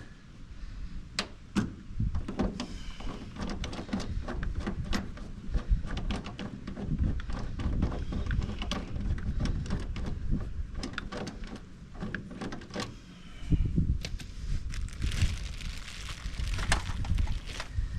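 Hands-on work with tools and metal parts: a steady run of sharp clicks and knocks over low handling noise, as rivet nuts are set and the number plate is fitted.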